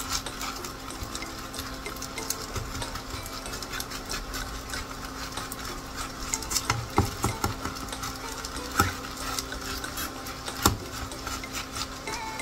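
Plastic spatula scraping and pressing shredded potato batter around a nonstick frying pan, over a light sizzle of frying, with a few louder knocks of the spatula against the pan in the second half.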